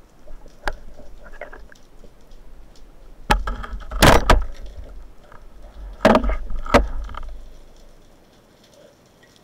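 Underwater sounds of a speargun shot and the struggle after it, heard through the camera fixed to the gun. A sharp snap comes about three seconds in, then heavy knocking and clatter, loudest around four seconds in and again around six to seven seconds in, before it dies away.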